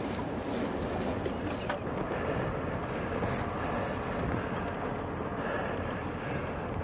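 Steady rushing wind noise with a low rumble underneath.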